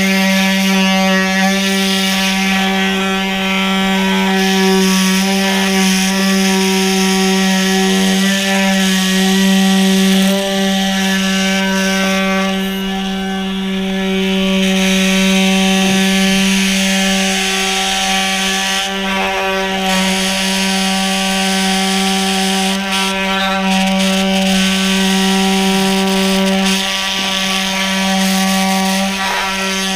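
Cordless power cold knife running steadily, an even-pitched buzzing hum that holds throughout, as its oscillating blade cuts through the urethane bonding a broken rear window glass into the cab frame.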